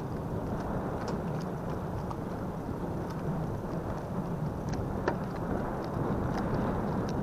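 Wind buffeting the microphone in a steady low rumble, with a few faint small clicks and one sharper click about five seconds in.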